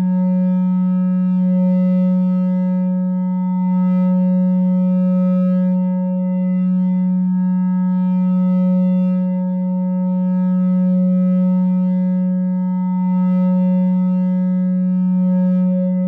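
No-input mixer feedback drone from a two-channel mixer looped through an effect pedal: a loud, steady low tone with a stack of fainter higher overtones, swelling and easing gently every two to three seconds.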